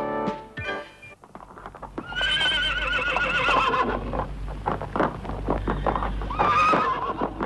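A horse whinnies with a long, wavering neigh. Galloping hoofbeats follow, and a second, shorter whinny comes near the end.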